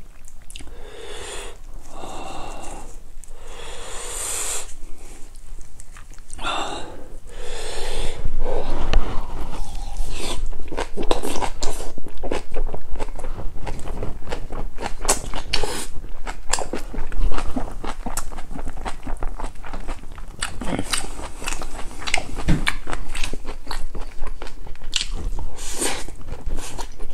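Close-miked chewing of spicy napa cabbage kimchi wrapped around boiled pork, with crunching and wet mouth sounds. It grows louder about eight seconds in, with dense crunchy clicks.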